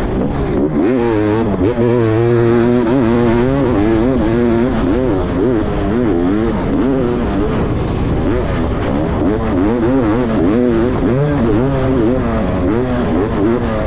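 Two-stroke dirt bike engine heard from the rider's helmet, its revs rising and falling again and again as the rider works the throttle and shifts.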